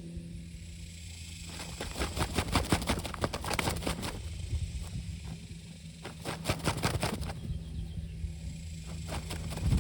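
A chicken beating its wings in two flurries of rapid flapping, each lasting a couple of seconds, over a steady low hum.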